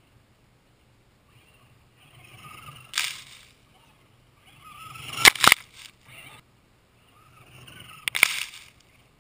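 Electric RC truck (Traxxas Ford Raptor) driving past three times on loose dirt. Each time its motor whine builds as it closes in and ends in a sudden loud spray of dirt and debris. The second pass has two bursts close together.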